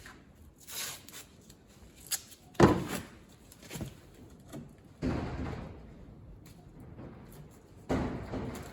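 A series of separate knocks and thuds, about six in all, the loudest about two and a half seconds in and two heavier ones with a short ring-out later on.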